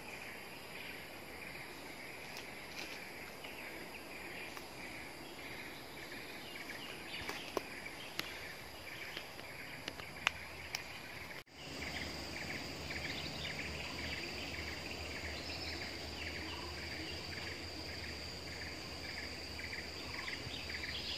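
Tropical forest insects chirring in rapid repeated pulses over a steady high whine, with a few sharp clicks in the middle. About halfway the sound drops out for an instant and returns with a low rumble under the chirring.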